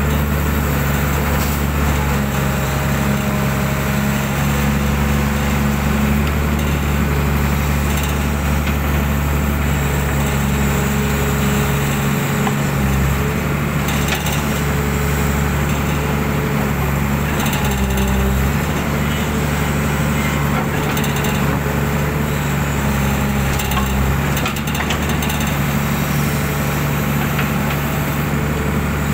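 Hydraulic excavator's diesel engine running steadily, its note shifting now and then as the boom and bucket work. A few brief knocks and scrapes come as the bucket nudges a culvert pipe into line.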